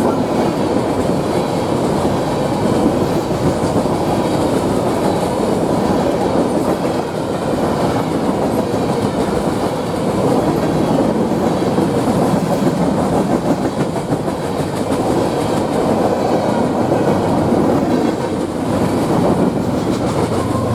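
Freight train cars rolling past in a steady, loud rumble, with clickety-clack of the wheels over the rail joints.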